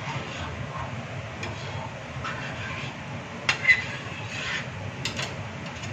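Steel spoon stirring and scraping in a steel kadhai of thick curry, with short metal clinks and knocks, the loudest about three and a half seconds in. A steady low rumble runs underneath.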